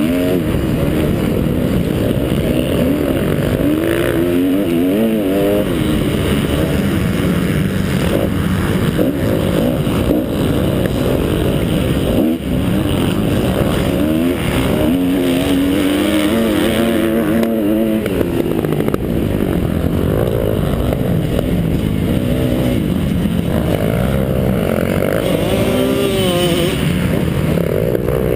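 2012 Kawasaki KX250F's single-cylinder four-stroke engine run hard through a motocross lap, its pitch repeatedly rising and falling with throttle and gear changes. Other dirt bikes run close by.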